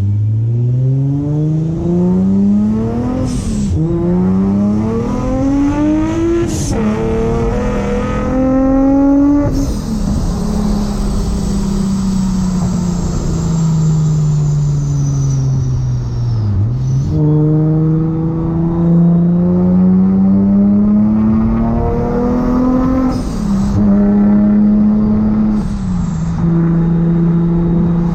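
Supercharged Infiniti G35's 3.5-litre V6 pulling hard through the gears of its six-speed manual. The revs climb and drop at two quick upshifts, each with a sharp blow-off valve hiss. The engine then eases off under a high, slowly falling supercharger whine, and climbs again with two more blow-off hisses near the end.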